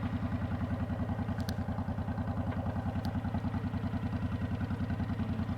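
Honda VTX 1300 V-twin motorcycle engine running at low, steady revs with an even, loping pulse. A couple of faint ticks come through, about a second and a half and three seconds in.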